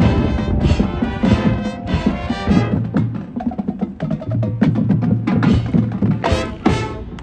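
Marching band playing: loud massed brass chords for the first couple of seconds, then thinner percussion with sharp clicks over a low held note, two loud ensemble hits near the end before the music drops away.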